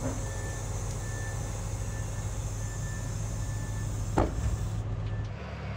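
A heavy vehicle's engine running steadily, with one sharp clunk a little over four seconds in.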